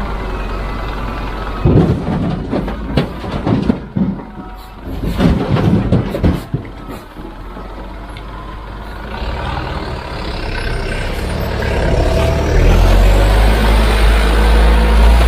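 Heavy diesel machinery at work: a run of loud clanks and bangs for about five seconds, then the engine running steadily louder, with a rising whine over the last few seconds.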